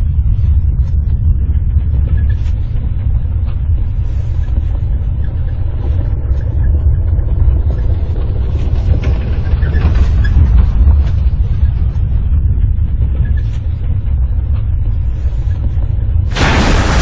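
Disaster-film sound effects: a deep, steady rumble, with a sudden loud blast of noise near the end as of an impact or explosion.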